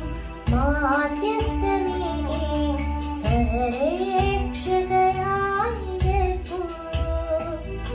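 A girl singing a Malayalam Marian devotional song in held, gliding phrases over instrumental accompaniment with a steady low beat.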